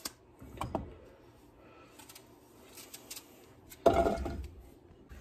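Faint small clicks and scrapes of a knife cutting the core and seeds out of an apple, then a dull thump about four seconds in beside a steel stockpot.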